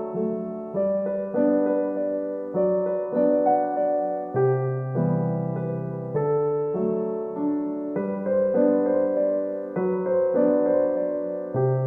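Background music: gentle piano, slow notes and chords changing about once a second.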